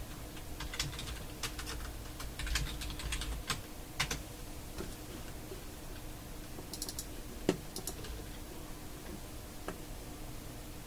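Computer keyboard typing: a run of key clicks over roughly the first four seconds, then a few scattered single clicks.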